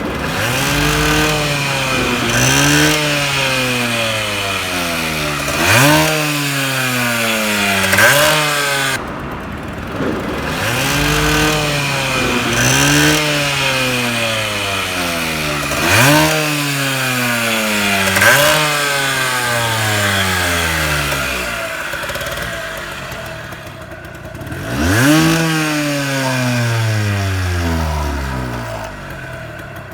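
Yamaha DT50's 50 cc two-stroke single-cylinder engine being revved repeatedly. Each time the pitch jumps quickly up and then sinks back slowly, with a longer fall near the end.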